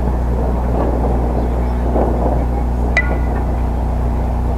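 A steady low rumble, with a single sharp knock about three seconds in that rings briefly with a metallic tone.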